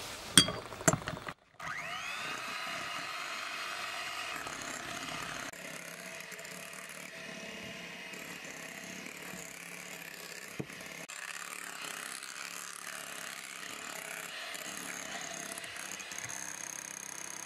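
Electric hand mixer whipping cream in a glass bowl: a few clicks, then the motor starts up about a second and a half in, rising in pitch, and runs steadily after.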